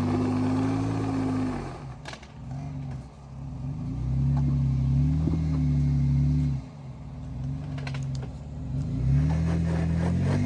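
Jeep engine revving in three rising and falling surges as it strains to climb a rocky trail obstacle, with a couple of sharp knocks in between.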